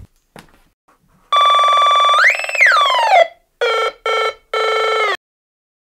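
Home-built stutter synth, a 556 timer circuit on a breadboard, sounding a buzzy electronic tone: a steady note starts about a second in, swoops up in pitch and glides back down, then breaks into three short stuttering bursts at one pitch.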